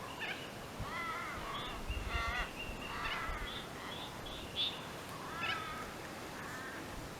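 Birds calling: a series of repeated wavering calls, about one a second, mixed with short higher chirps.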